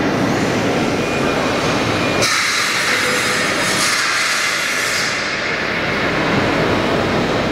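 Steady rushing background roar of a large, high-roofed exhibition hall, with no distinct events. About two seconds in it turns brighter and hissier, with less low rumble.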